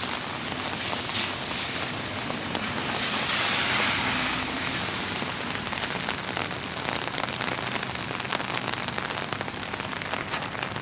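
Heavy rain falling steadily in a hiss, swelling for a moment a few seconds in, with close drops ticking sharply in the second half.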